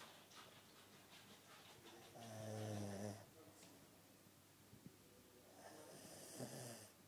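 Snoring in sleep: two snores, each about a second long, the first about two seconds in and the second, softer one near the end.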